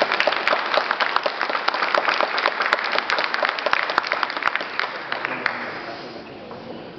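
Audience applauding, dense at first and then fading away over the last two seconds.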